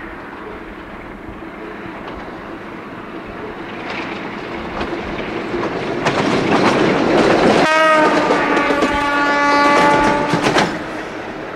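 Romanian diesel-electric locomotive running toward and past, its engine growing steadily louder. About two-thirds of the way in it sounds one long horn blast of about three seconds, which then cuts off.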